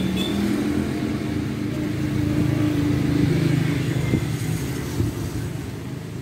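A motor vehicle's engine running steadily with a low drone; its higher tone fades after about three seconds.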